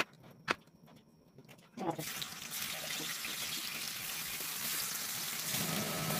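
Two sharp cleaver chops on a plastic cutting board, then from about two seconds in, slices of tofu sizzling steadily as they are laid into hot oil in a wok.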